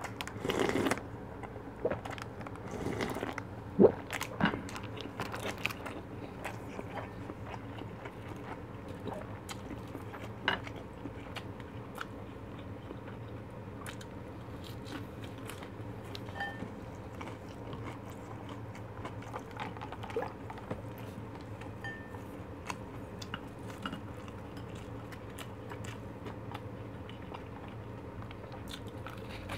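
Close-miked eating: a loud sip of fish cake broth from a plastic container about a second in, then chewing fish cake and fried food, with soft wet mouth sounds and occasional sharp clicks. A steady low hum runs underneath.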